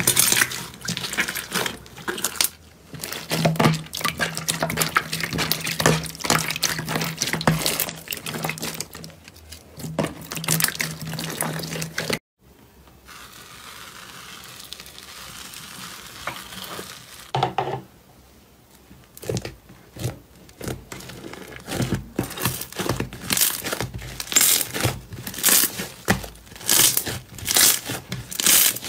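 Slime squeezed and kneaded by hand, crackling and popping with trapped air: first a clear, wet slime in a glass bowl, then, after a sudden cut about twelve seconds in, a quieter soft rustle as a fluffy slime is pressed, then dense clicking and popping again as a large glossy slime is kneaded.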